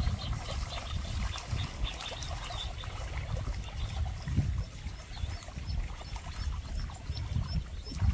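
Ducklings peeping: scattered short high calls, then a run of evenly spaced peeps in the last few seconds, over a steady low rumble.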